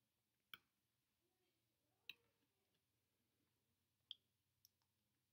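Near silence broken by four faint, sharp clicks, about a second or two apart, from the computer input device used to redraw a sketch in drawing software.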